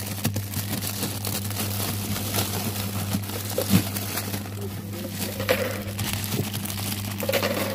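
Plastic bags crinkling and rustling as a hand rummages among them in a refrigerator, with many small crackles and a steady low hum underneath.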